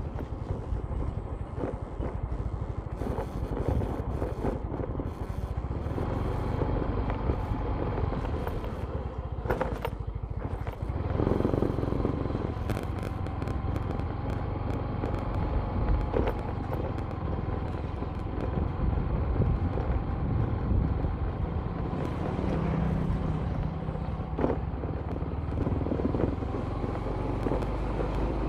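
A vehicle driving along a concrete road: the engine runs steadily under tyre and road noise, with a few short knocks from bumps.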